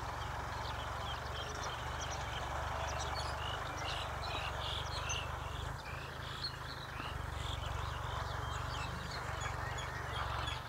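Many birds chirping in short, scattered calls, over a steady low rumble.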